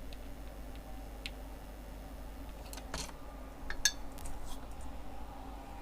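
A few light clicks and taps of small metal tools on a repair bench during phone battery soldering work, the sharpest about four seconds in, over a steady low electrical hum.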